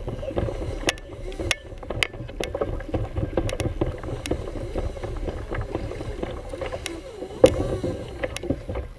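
Water slapping and splashing against a moving pedal kayak's hull, with wind rumbling on the microphone and scattered sharp clicks and knocks, one louder knock near the end.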